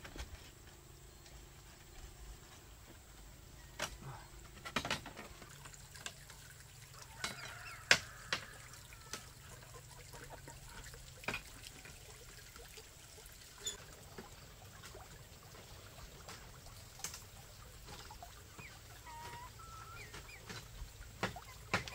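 Irregular knocks of a hand tool striking bamboo, about ten blows spread unevenly, the loudest about eight seconds in.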